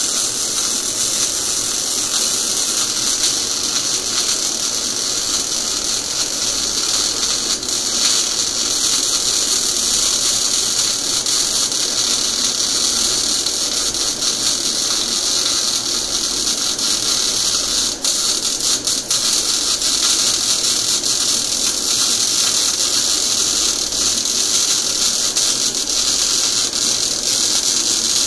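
MIG/MAG (semi-automatic gas-shielded) welding arc burning without a break on a vertical seam: a steady hiss with fine crackle, dipping briefly a couple of times about two-thirds of the way through.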